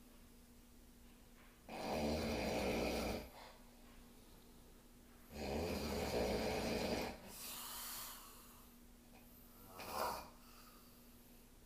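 A person snoring: two long, loud snores a few seconds apart, then a softer hissing breath out and a short snort near the end. A faint steady hum runs underneath.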